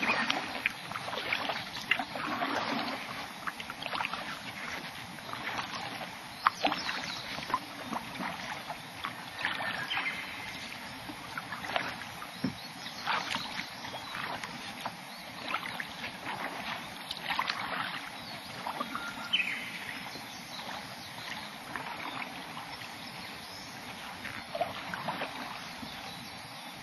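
Kayak paddle strokes in calm water: the blades dip and splash, with drips and small splashes coming at irregular intervals.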